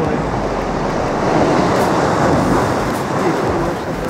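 Sea waves breaking and washing over the rocky shore, a steady rushing noise.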